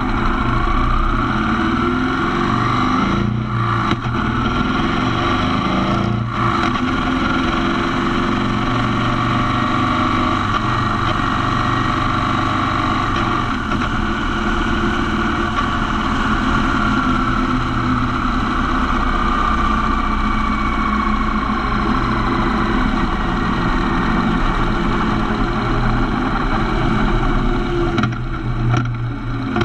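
Motorcycle engine running while riding, with wind and road noise. The engine note rises and falls with the throttle and dips briefly about three and six seconds in and again near the end.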